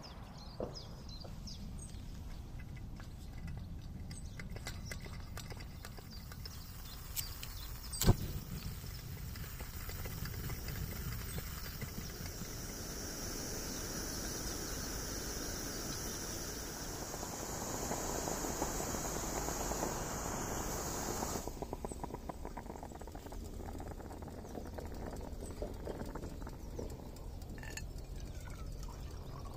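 Coleman Dual Fuel 533 pressurised camping stove burning with a steady hiss under a stainless stovetop coffee pot. The hiss grows rougher and louder before cutting off suddenly about twenty seconds in. A single sharp knock comes about eight seconds in.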